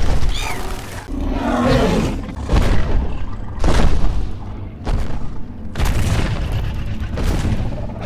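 Film sound effects for a Tyrannosaurus: several heavy booming impacts and crashes, with music underneath.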